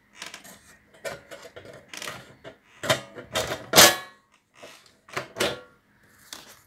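Top cover of a Grundig V304 amplifier being put back on: a series of irregular metal clatters, knocks and scrapes, loudest a little under four seconds in.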